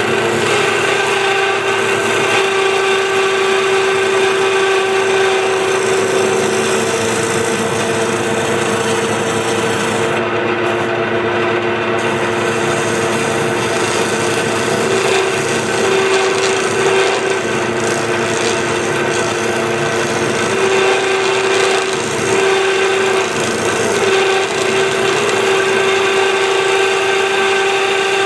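Wood lathe running with a turning chisel cutting a spinning wooden blank down to round: a steady scraping cut over the hum of the lathe.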